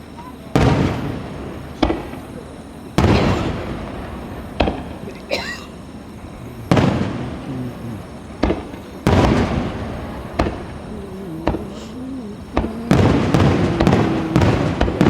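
Starmine fireworks bursting: loud booms every two to three seconds, each trailing off in a long rumbling echo, with sharper cracks between them, then a quick string of bursts over the last couple of seconds.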